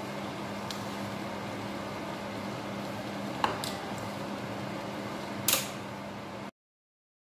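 Steady kitchen hum and hiss like a running fan, with a small click about three and a half seconds in and a louder clack about five and a half seconds in; the sound cuts off abruptly shortly before the end.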